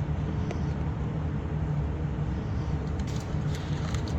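Steady low rumble of workshop background noise, with a few faint clicks.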